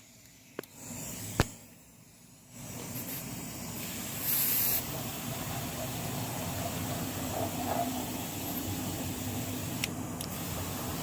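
Ridgid air compressor starting up and running steadily after a couple of clicks, with a short burst of air hiss about four seconds in.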